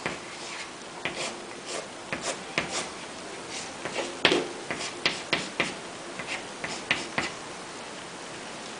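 Chalk writing on a blackboard: a string of short taps and scratches as lines and letters are drawn, stopping near the end.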